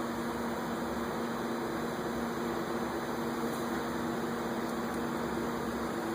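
A machine's motor running steadily: an even hum with a few steady tones over a hiss.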